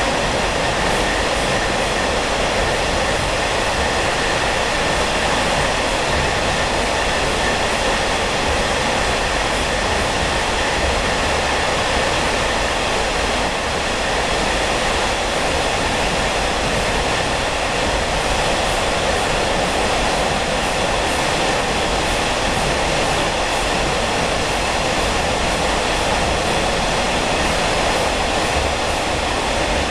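Steady, loud running noise of a Taiwan Railway SPK32700-series ordinary passenger coach in motion: wheels and bogies on the rails with a constant roar, heard inside the coach while it runs through a tunnel.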